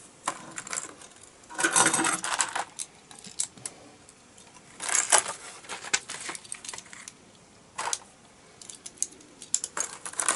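Loose plastic Lego pieces rattling and clicking as hands sort through them and fit them together, with two busier bursts of rattling about one and a half and five seconds in and scattered single clicks between.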